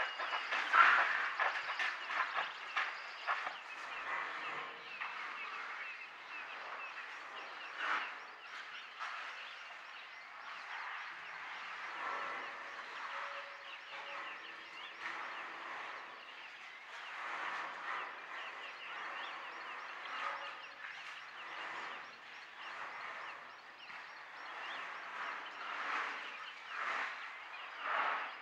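Outdoor ambience of many small birds chirping, with a few louder knocks, the loudest about a second in.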